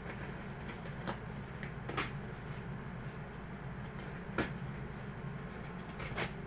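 Small scissors cutting through packing tape on a cardboard box: four short, sharp snips and scrapes a second or two apart, over a steady low hum.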